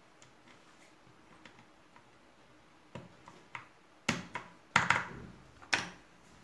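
Keycaps being pressed down on a wooden-cased Ducky One 2 Mini mechanical keyboard: faint ticks at first, then about seven sharp plastic clicks in the second half as the last keys are seated.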